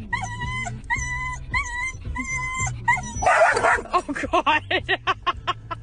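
A dog whining in about six even, high-pitched calls, then one bark and a quick run of short yips, several a second.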